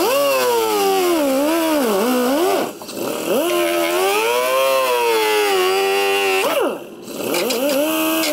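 Handheld high-speed rotary tool cutting through the ATV's plastic front body panel, its whine rising and falling in pitch as the bit bites into the plastic. Twice, near 3 s and 7 s, it spins down briefly and then winds back up.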